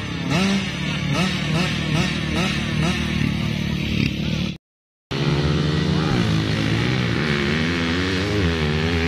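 Several small motocross bikes revving in repeated quick blips while waiting at the start line. After a brief cut to silence just before halfway, the bikes accelerate away down the dirt track, engine pitch wavering up and down.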